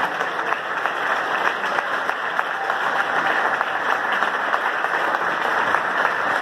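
A large audience applauding steadily, many hands clapping at once in a standing ovation.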